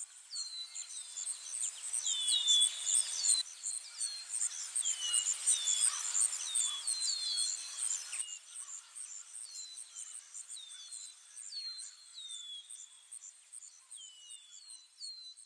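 Outdoor nature ambience: small birds repeating short, falling chirps over a steady, fast-pulsing high insect trill.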